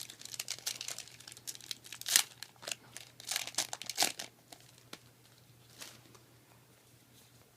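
Foil Yu-Gi-Oh booster pack crinkling and being torn open by hand: a run of crackly rustles for about four seconds, with sharp tears about two seconds in and again near four seconds.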